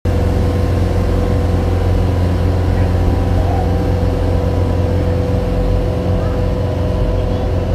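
Water-taxi boat's engine running steadily under way: a constant low drone with a steady hum over it.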